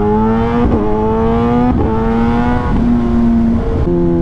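Kawasaki Ninja ZX-10R's inline-four engine pulling hard through the gears. The revs climb, then drop at each upshift, four shifts about a second apart.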